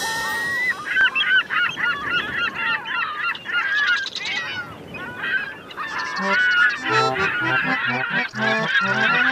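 A flurry of short, rapid, squawking bird calls, honking and gull-like, as a cartoon sound effect. About six seconds in, music with a stepping bass line comes in under the calls.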